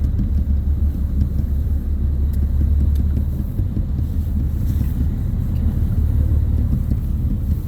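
Steady low rumble of a whale-watching boat's engine.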